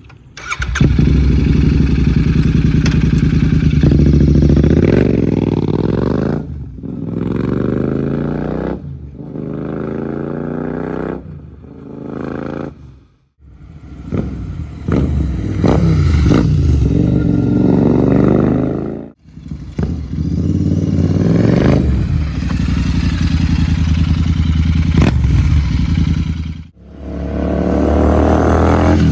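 Royal Enfield Interceptor 650's parallel-twin engine running through an aftermarket Hunter exhaust, idling and being revved, the pitch rising and falling. The sound comes in several segments that cut off abruptly.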